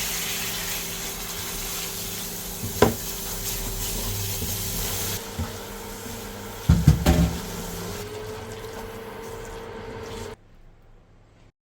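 Tap water running into a vessel in a sink, with a sharp knock about three seconds in and a few clunks around seven seconds. The pitch rises slowly as the vessel fills, and the sound cuts off abruptly near the end.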